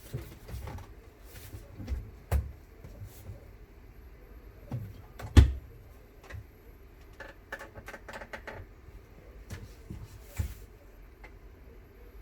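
Scattered knocks and clicks of something being handled: the sharpest knock comes about five seconds in, and a quick run of small clicks follows around eight seconds.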